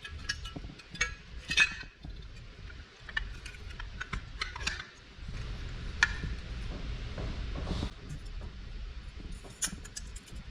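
Scattered light clinks and taps of metal and glass parts being handled as a glass-lens headlight is fitted into its metal headlight bucket and trim ring, over a low steady rumble.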